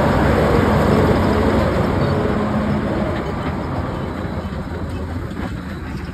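A big articulated Kirovets farm tractor's diesel engine going past close by, then its trailers loaded with seed drills rattling and rumbling over gravel, the noise fading as the convoy moves away.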